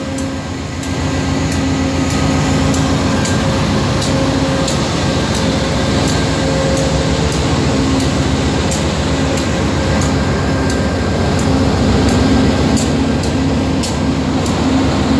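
VIA Rail F40PH and P42DC diesel locomotives running at close range: a steady engine and cooling-fan drone with a faint low hum, and light ticks every second or so.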